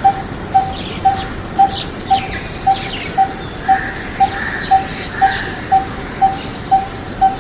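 Coppersmith barbet calling: a single hollow, metronomic "tuk" note repeated evenly about twice a second, like a coppersmith striking metal with a hammer. Other birds chirp faintly behind it.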